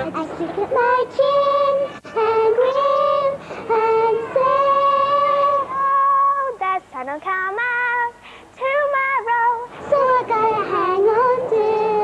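Young girls singing solo, one voice at a time, a simple sung melody in short phrases with brief breaks between them.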